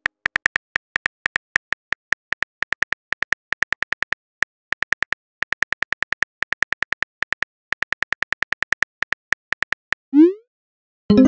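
Typing sound effect of a texting-story app: a short, high tick for each letter as a reply is typed out, in quick irregular runs of several a second. About ten seconds in, one quick rising swoop, the message-sent sound.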